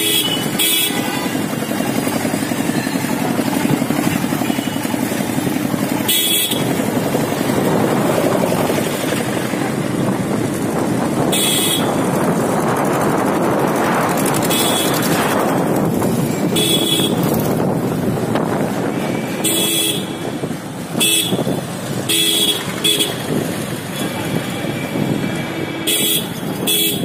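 Vehicle horns honking in short blasts about ten times, more often in the second half, over the steady rush of engine and wind noise from riding a Suzuki GS150R motorcycle through traffic.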